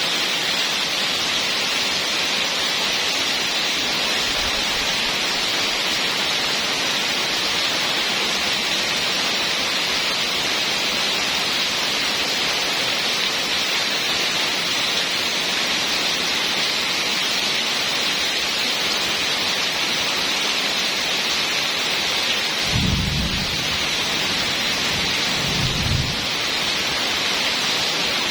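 Heavy rain falling steadily, a dense even hiss. Near the end come two short, low rumbles of thunder a few seconds apart.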